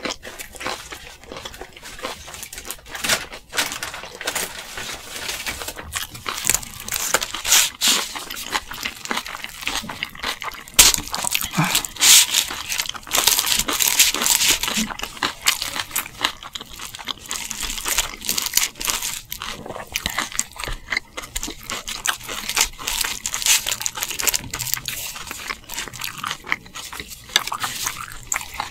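Close-miked chewing and crunching of crunchy food: a dense run of quick crunches and crackles, loudest around the middle.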